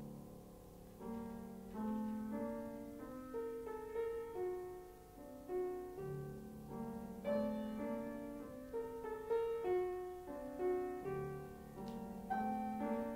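Solo piano playing a cadenza: runs of single notes and chords struck one after another, each note fading away after it is struck.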